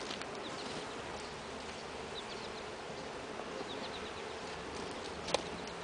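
Honeybees of an open hive buzzing steadily, with a single short knock near the end.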